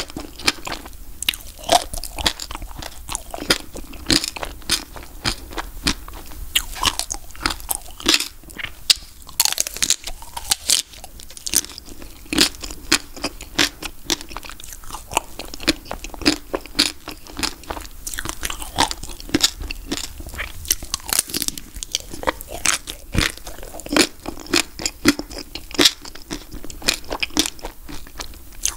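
Biting and chewing a chocolate-coated Magnum ice cream bar: the hard chocolate shell cracks and crunches in many sharp, irregular crackles, with chewing between.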